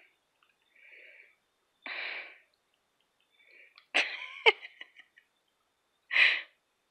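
A mother cat and her three-week-old kitten wrestling, giving a series of short breathy bursts a second or two apart. The densest cluster comes about four seconds in, with sharp clicks and a brief falling squeak. The last burst, a couple of seconds later, is one of the loudest.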